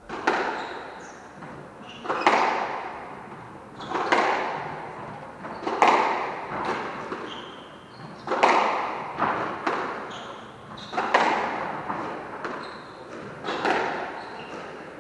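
Squash ball struck by rackets and slamming into the court walls during a rally, about seven hard hits roughly every two seconds, each echoing in the court. Short high squeaks of court shoes on the wooden floor come between the hits.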